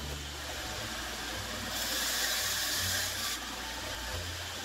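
Skil 3386 benchtop band saw running steadily with its motor hum and blade hiss. The hiss grows louder for about a second and a half in the middle.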